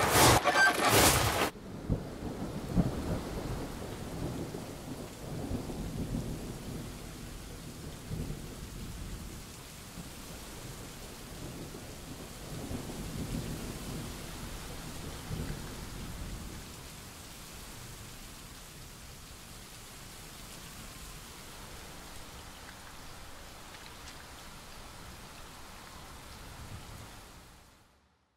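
Film soundtrack played over the hall's speakers: a loud, dense first second and a half, then a steady noisy rumble with slow swells in the low end, fading out about a second before the end.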